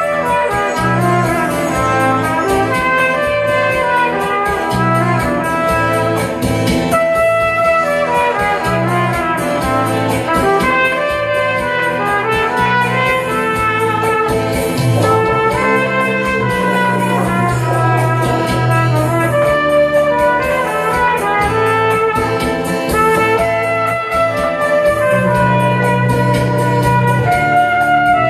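Trumpet playing a melody into a microphone, over an accompaniment with a steady bass line that changes note every second or two and a regular beat.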